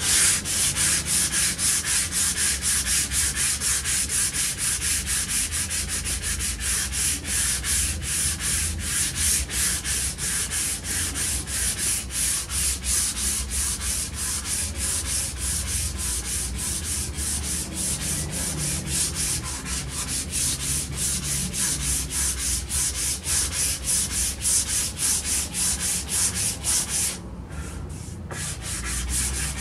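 Hand sanding the edge of an MDF board with wet-or-dry sandpaper: fast, even back-and-forth scraping strokes, smoothing and sealing the edge before varnishing. The strokes break off briefly near the end and then start again.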